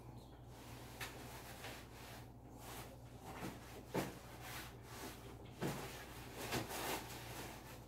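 Things being handled and shifted on top of a wooden wardrobe: scattered light knocks and rustling, about half a dozen, the sharpest about four seconds in, over a steady low hum.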